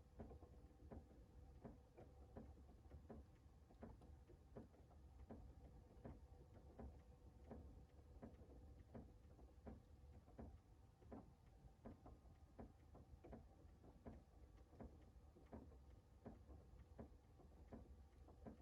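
Faint, slightly irregular tapping of rain drips, about two a second, over a low steady hum.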